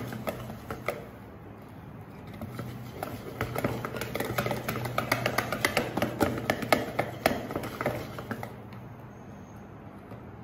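Stainless-steel balloon whisk beating thick cake batter in a ceramic bowl, its wires clicking and tapping against the bowl in quick, irregular strokes. The strokes grow faint after about eight seconds.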